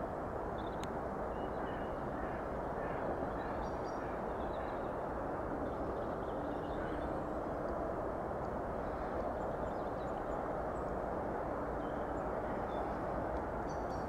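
Steady low rushing background noise with faint, scattered chirps of small birds.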